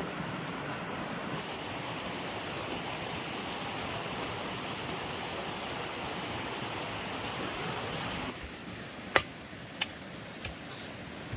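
A steady rushing noise that cuts off suddenly about eight seconds in, followed by three sharp knocks.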